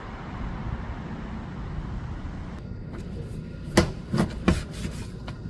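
Steady low rumble of a wood fire used for grilling pork, with three sharp clacks about four seconds in.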